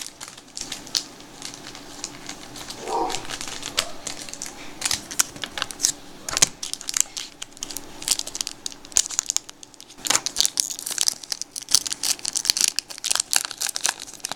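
Foil wrapper of a 1992 Donruss baseball card pack crinkling and tearing as it is ripped open by hand. The crackles are sparse at first and become thick and near-continuous from about ten seconds in.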